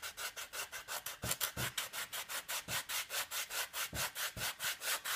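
Sandpaper rubbed rapidly back and forth over the exposed foam of 3 mm foam board, about seven or eight short strokes a second, sanding the foam down to a sharp bevel for a control-surface hinge.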